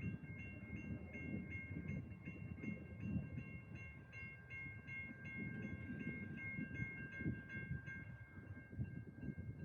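Railroad grade-crossing warning bell dinging about two to three times a second, stopping about eight seconds in, over a low rumble.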